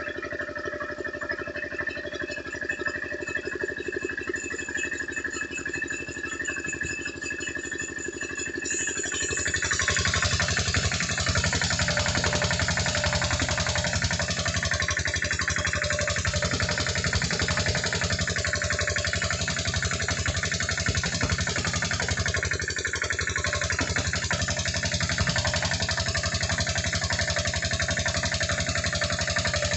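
Sawmill saw machinery running with a steady whine. About nine seconds in it grows louder and coarser, and it stays that way to the end.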